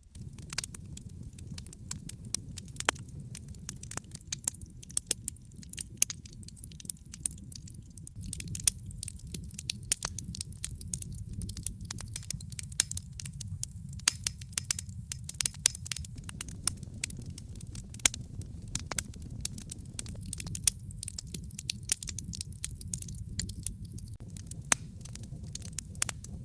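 Wood logs burning in a fireplace: irregular sharp crackles and pops over a steady low rumble of the flames.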